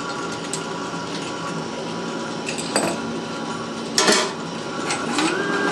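Clicks and clinks of metal and glass as the finished glass O-ring joint is taken out of the glass lathe's four-jaw chuck, over a steady machine hum. The loudest clink comes about four seconds in.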